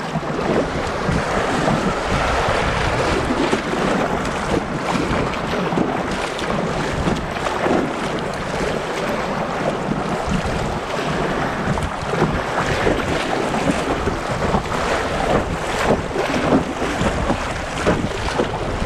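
Rushing whitewater of a class II river rapid, with frequent splashes around the kayak and wind buffeting the microphone.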